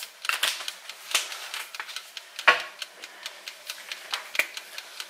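Seasoning being shaken from a shaker onto sliced sweet potatoes: a run of light ticks, settling to about three a second, with one louder knock about halfway through.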